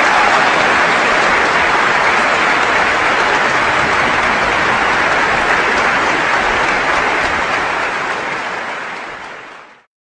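Applause: steady clapping from a crowd that fades out over the last couple of seconds and stops.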